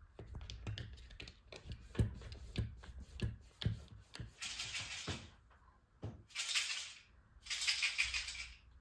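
A cat's paws and claws knocking and scratching against the base panel of a kitchen cabinet: a run of quick irregular taps and clicks, then three short spells of scraping.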